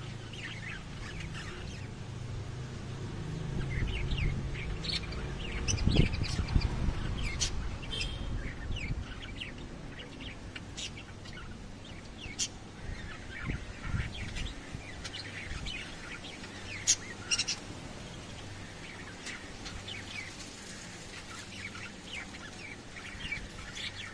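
Lovebirds chirping: many short, high chirps and squeaks, busiest several seconds in, with a couple of low thumps underneath.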